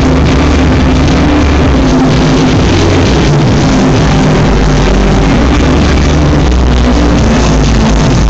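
Very loud club music over a nightclub sound system, with long held bass notes under a dense, unbroken wall of sound.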